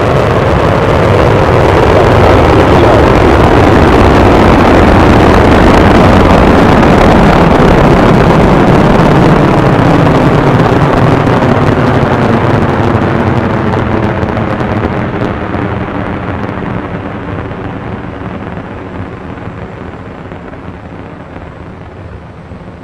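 Falcon 9 rocket's nine Merlin 1D first-stage engines at full thrust just after liftoff: a loud, rough rushing noise. It peaks about five seconds in, then fades steadily and loses its high end as the rocket climbs away.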